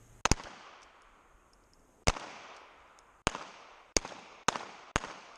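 Revolver gunfire, the nearest shots from a Colt Python: about seven sharp cracks, each with a short echo. The first two come almost together just after the start, then after a pause they come faster, about every half second near the end.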